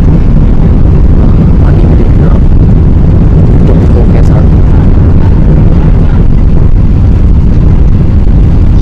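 Steady, loud, low rumble of engine and airflow noise heard inside the passenger cabin of a four-engined Airbus A380 airliner under way.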